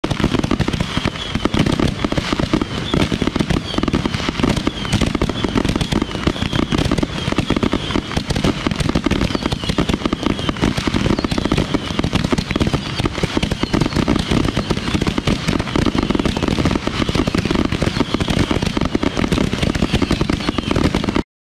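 Ground-fired fireworks going off in a dense barrage: a continuous, rapid crackling and popping of many small bangs. It cuts off suddenly near the end.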